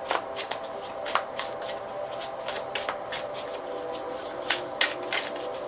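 Tarot cards being shuffled by hand: a run of quick, irregular card snaps and slides.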